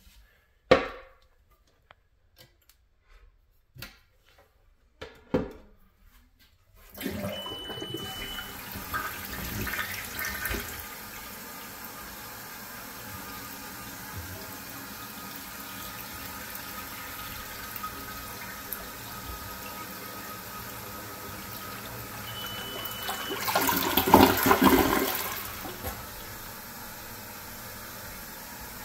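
A few sharp clicks and knocks, then the 1981 American Standard Ellisse toilet flushes about seven seconds in: a loud rush of water for a few seconds, settling into the steady hiss of the tank refilling, with a second, louder rush of water about 24 seconds in. A smoke detector beeps once as the flush starts and again about fifteen seconds later.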